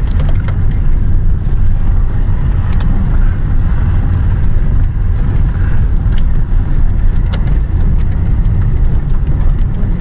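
A car driving on the road, heard from inside the cabin: a steady low rumble of engine and tyre noise.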